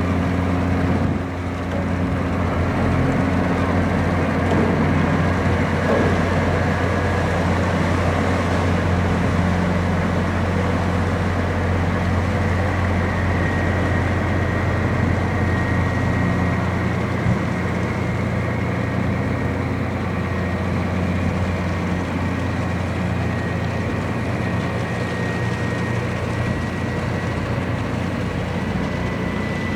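Sightseeing boat's engine running steadily, heard from aboard as a constant low drone, with a faint high whine coming in partway through.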